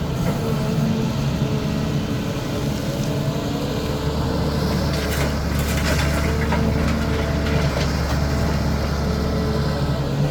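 CAT 320D excavator's diesel engine running steadily, pulling harder from about four seconds in as the machine works. Clanks and scraping come between about five and seven seconds.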